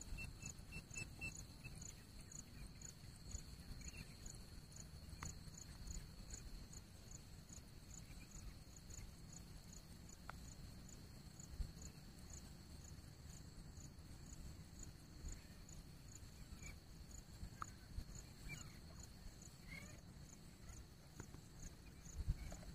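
Quiet outdoor background: a faint, steady high-pitched ticking about twice a second over a low rumble, with a few soft clicks; the grey francolin is not calling.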